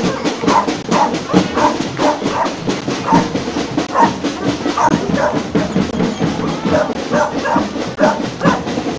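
Street-parade drumming in a quick steady beat, with short sharp calls or shouts breaking in over it again and again.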